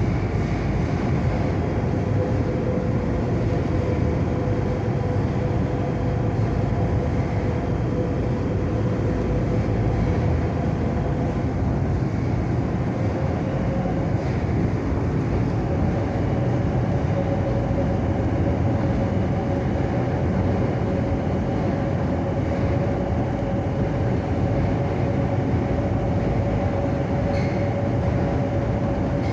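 Madrid Metro Line 7 train running through a tunnel, heard from inside the passenger car: a steady rumble with a whine that rises slightly in pitch about halfway through.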